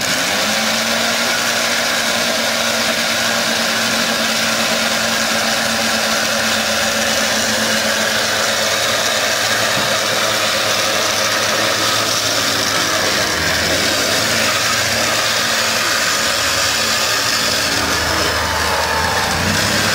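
An electric winch on a mud-stuck SUV switching on abruptly and hauling steadily under heavy load, with the vehicle's engine running.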